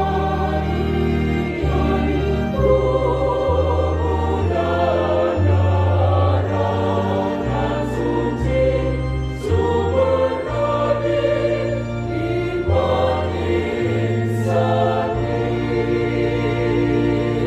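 Church choir singing, accompanied by long held bass notes from a keyboard or organ that shift in pitch every second or two.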